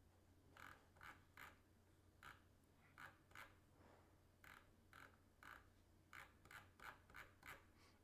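Near silence over a low steady hum, broken by about twenty faint, short scratchy ticks at irregular intervals.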